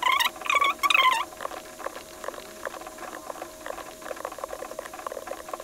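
High-pitched, squeaky chirping like a voice played back fast for about the first second, then a rapid run of light clicks from a computer keyboard and mouse, as a fast-forwarded screen recording of code editing.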